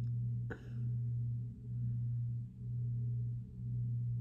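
Steady low electrical hum that swells and dips about once a second, with one faint click about half a second in.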